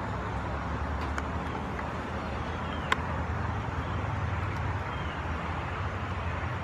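Steady outdoor background noise: a low rumble with hiss, like distant road traffic. A sharp click comes about three seconds in, and a few faint, short high-pitched chirps sound at times.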